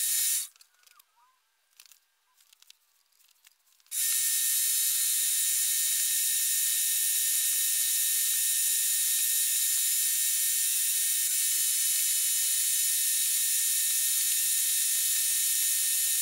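Milling machine cutter cutting aluminium angle: a loud, steady, high whine made of many tones. It cuts off just after the start, a few faint clicks follow, and the cutting sound starts again about four seconds in and runs on.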